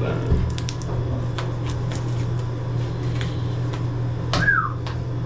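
Steady low hum of a walk-in cooler's refrigeration unit, with scattered light clicks and knocks of a knife and hands working a hind leg off a hanging, skinned axis deer carcass. A short falling squeak about four and a half seconds in.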